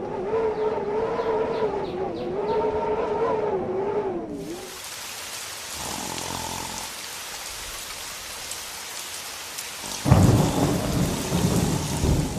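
Thunderstorm sound effect: a wavering tone for the first few seconds, then the steady hiss of heavy rain, with a loud rumble of thunder about ten seconds in.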